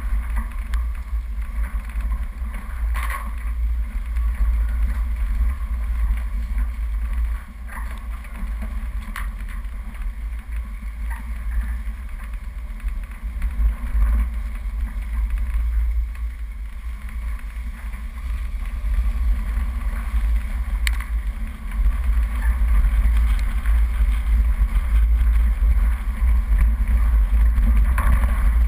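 Off-road 4x4 driving down a rough dirt track, heard as a steady low rumble through a hood-mounted camera, with wind buffeting the microphone and a few sharp knocks. The rumble grows louder about three quarters of the way through.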